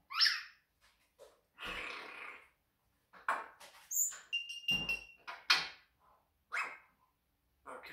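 A caged grey parrot making a string of short calls and mimicked noises: a rising whistle at the start, a breathy rasp, a run of clicks and chirps, and a brief steady whistle about halfway through.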